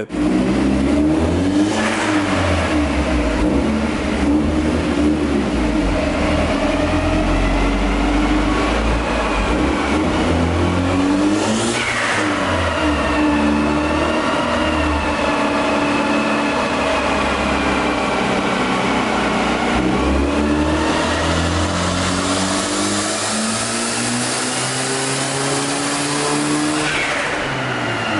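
Hyundai Genesis Coupe's turbocharged 2.0-litre four-cylinder, fitted with a 20G twin-scroll turbo, running on a chassis dyno. Its pitch climbs and falls several times, with sudden drops about twelve, twenty and twenty-seven seconds in.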